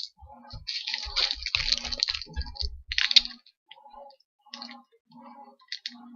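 Crinkling and clicking of small plastic items being handled, busiest in the first half and thinning out after about three seconds.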